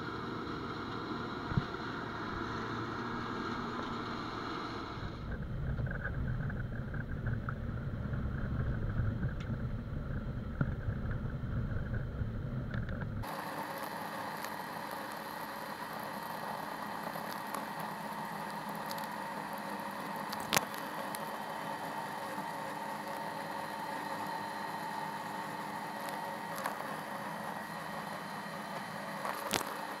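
John Deere combine harvester running steadily as it cuts soybeans, heard first from outside alongside the machine, then from inside the cab where the sound is thinner with steady hums. A few sharp clicks stand out.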